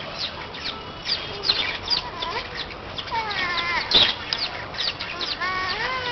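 Birds chirping in many short, high, falling calls, with a longer, drawn-out pitched call twice: a little after three seconds and near the end.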